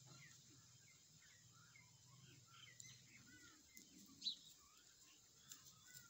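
Faint chirping of small birds, many short scattered calls, with one sharper, louder chirp about four seconds in.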